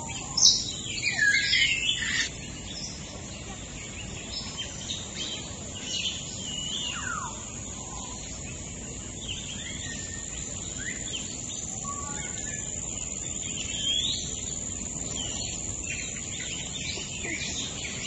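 Many birds chirping and calling, a dense flurry of calls in the first two seconds, then scattered chirps and short whistles, some falling in pitch, over a steady high hiss.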